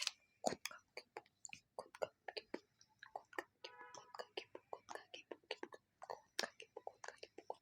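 Close-miked wet mouth sounds from sucking a lollipop: rapid clicks and smacks, mixed with unintelligible whispering and a brief voiced sound about halfway through.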